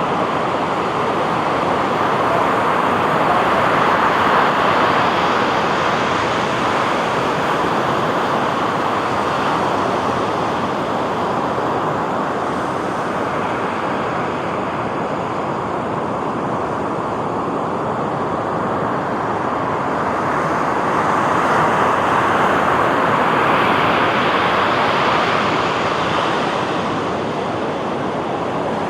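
Ocean surf washing onto a beach: a continuous rush of noise that slowly swells and ebbs, building twice to a louder wash.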